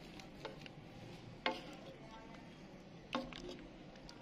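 Kitchen utensils clinking against a wok as boiled watermelon-rind cubes are scooped out with a steel mesh strainer and wooden spatula. A few light ticks and two louder knocks under two seconds apart, each with a short metallic ring.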